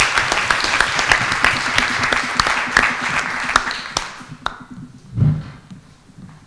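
Audience applauding, a dense patter of many hands clapping that dies away about four and a half seconds in. A single brief low thump follows a little after five seconds.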